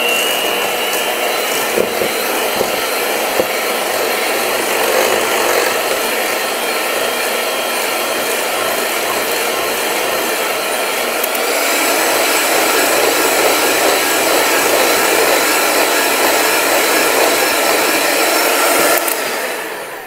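Handheld electric mixer running steadily, its beaters whisking egg yolks and a whole egg in a stainless steel bowl. It gets a little louder about halfway through and stops near the end.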